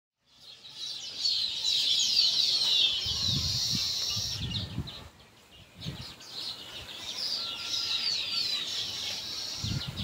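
Zebra finches chirping in dense runs of quick, high, falling notes, with a lull about halfway through. Soft low thumps come in places, in the middle and again at the end.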